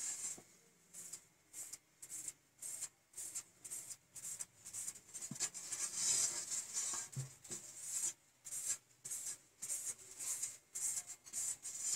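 Hand rubbing and patting a paper sheet against a freshly spray-painted board, a quick series of short scratchy strokes, two to three a second, with a slightly longer swish about six seconds in.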